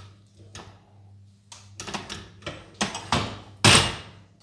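A spatula scraping and knocking against a stainless-steel pot as mashed potato is scooped out and dropped into a glass baking dish: a run of uneven knocks and scrapes that gets busier and louder, with one longer, louder scrape about three-quarters of the way through.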